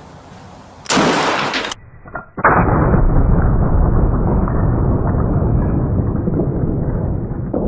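A single loud gunshot about a second in. From about two and a half seconds, a long, dull, rumbling boom with no treble fades slowly over about five seconds.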